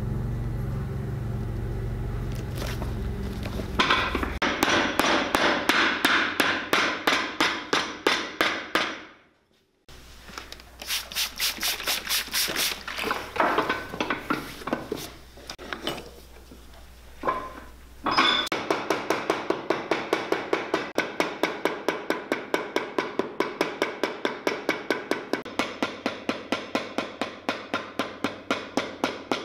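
Hand rasp filing the stacked leather heel and sole edge of a boot: runs of quick, even scraping strokes, about three or four a second, broken by a short pause partway through. A low machine hum sits under the first few seconds.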